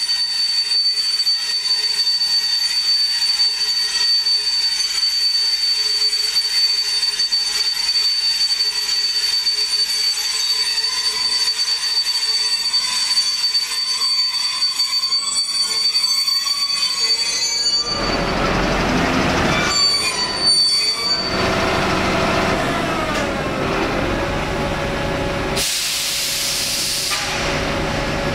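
ÖBB class 2068 diesel-hydraulic shunting locomotive moving a rake of coaches slowly along the platform. A steady high-pitched wheel squeal is heard at first; from about two-thirds of the way through, the locomotive's diesel engine grows loud as it draws near. A burst of air hiss comes near the end as it stops.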